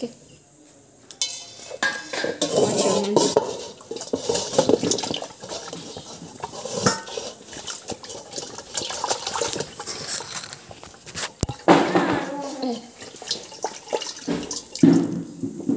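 Steel dishes and a stainless steel pot being washed by hand: metal clinking and scraping as they are scrubbed and moved, with several sharp clanks.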